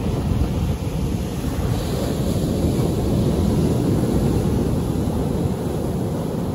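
Ocean surf: medium waves breaking and washing up on a sandy shore and against large rocks, a continuous rushing noise. Wind buffets the microphone.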